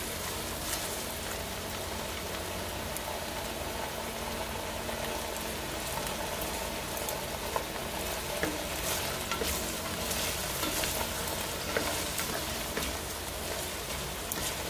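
Cubed potatoes frying in shallow oil in a stainless steel pan: a steady sizzle, with the spatula clicking and scraping against the pan now and then as they are stirred. They are being fried until golden brown.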